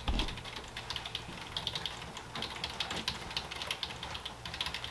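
Quick, irregular clicking, many small clicks a second over a low steady hum.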